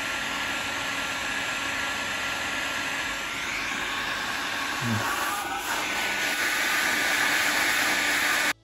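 Heat gun blowing hot air, a steady hiss with a faint whine, heating a lump of vinyl filler so that it sets all the way through. It cuts off suddenly near the end.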